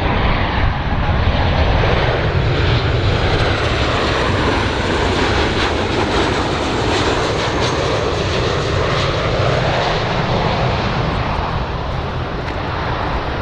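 A large fixed-wing airplane's engines running loud and steady: a deep rumble under a wide rushing noise, with a faint high whine.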